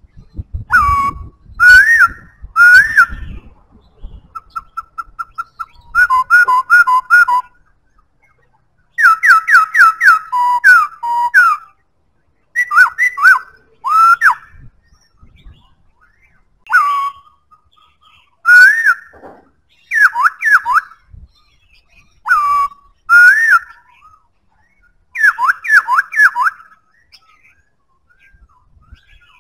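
Black-throated laughingthrush singing: loud, clear whistled phrases of notes that slide up and down, each phrase a second or two long with short pauses between, and a quick soft run of repeated pips about five seconds in.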